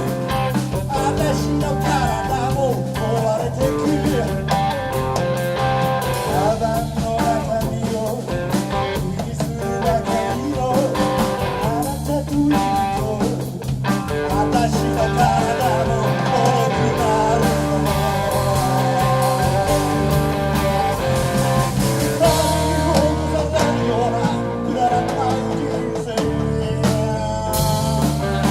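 Live blues-rock band playing a song: guitar to the fore, held bass notes underneath, and singing.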